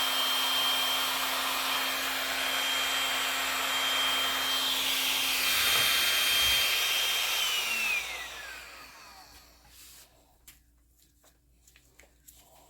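Handheld electric air blower running steadily with a high whine, then switched off about two thirds of the way in, its whine falling as the motor spins down. A few faint light clicks follow.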